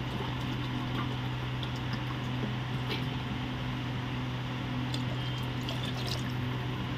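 A pot of chicken, rice and spiced water on the stove gives a steady watery hiss, with a low steady hum underneath and a few faint clicks.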